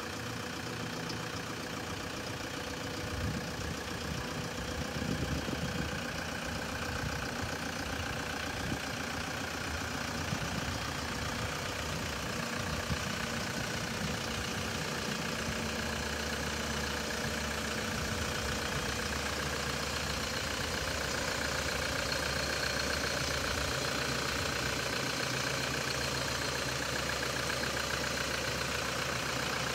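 Toyota Hilux 3.0 D-4D four-cylinder turbodiesel engine idling steadily.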